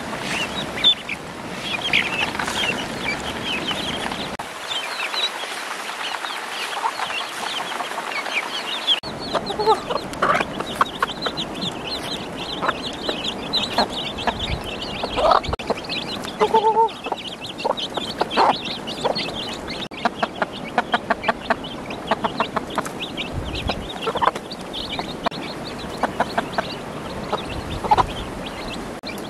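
Ducklings peeping in a dense chorus for the first several seconds, then a hen clucking in many short notes over her chicks' continuous high peeping.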